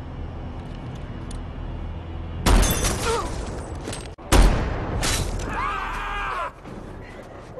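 Two loud rifle shots about two seconds apart, each followed by a long rolling echo, over a low rumble.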